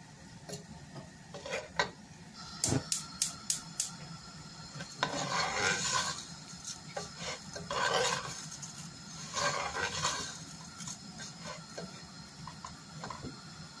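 A metal spatula stirring raw basmati rice being stir-fried in a nonstick pot. A quick run of about five metallic taps against the pot comes about three seconds in, then three bouts of the dry grains scraping and rustling against the pan.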